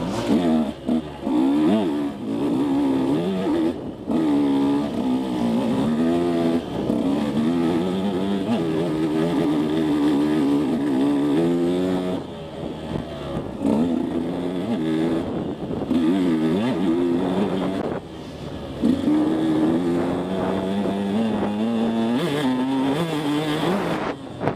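KTM 150 SX two-stroke dirt bike engine revved hard through the gears, its pitch repeatedly climbing and dropping as the rider shifts and rolls the throttle on and off over rough ground. The throttle is backed off briefly twice, about halfway through and again about three-quarters through.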